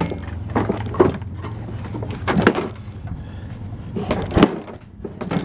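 Putty knife scraping rust and caked debris off the underside of a lawn mower deck in several irregular strokes, with a few knocks, the loudest about four seconds in.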